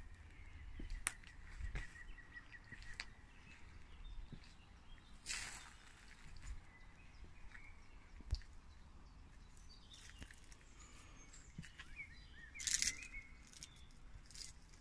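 Faint garden ambience: small birds chirping in a quick run of short notes early on, soft footsteps on paving, and two brief rustling bursts, about five seconds in and again near the end.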